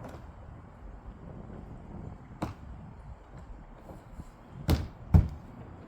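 Sharp knocks and thuds of the megalodon prop's body panels being pushed and locked together: four knocks, the last two about half a second apart near the end and the loudest.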